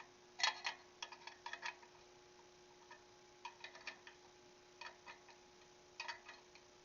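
Light metallic clicks, in small irregular clusters, of a spoke wrench working the spoke nipples of a freshly laced motorcycle wheel as the spokes are tightened.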